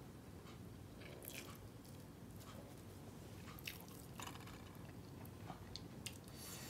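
Quiet chewing and wet mouth sounds of a person eating roast chicken and rice by hand, with scattered soft clicks and smacks.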